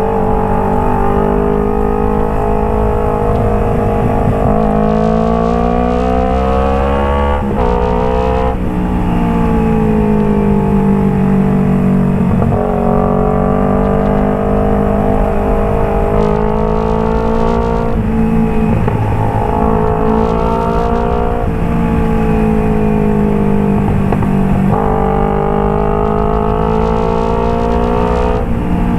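Kawasaki Ninja 250 FI's parallel-twin engine through a Phoenix aftermarket exhaust, revving repeatedly. The pitch climbs over a few seconds and then drops sharply, over and over, like acceleration through the gears.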